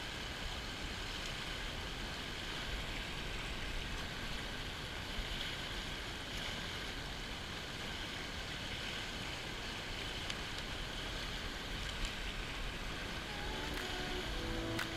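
Shallow, fast river water rushing steadily over stones in a riffle, heard close up. Music fades in near the end.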